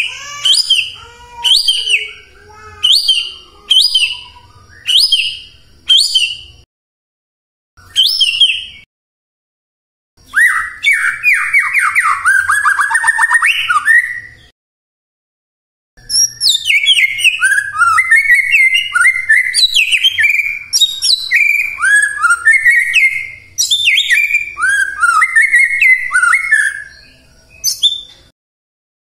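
White-rumped shama singing in bouts. First comes a string of short repeated whistled phrases about once a second. About ten seconds in there is a fast rattling phrase, then a long run of quick, varied whistled notes, with short silent pauses between bouts.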